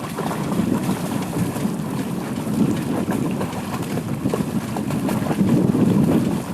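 Wind buffeting the microphone in a low, rumbling rush that gusts louder about halfway through and again near the end.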